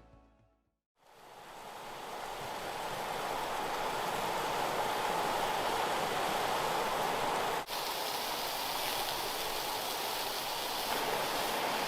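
Steady rush of a flowing river, fading up after a moment of silence about a second in, with a brief dropout near eight seconds.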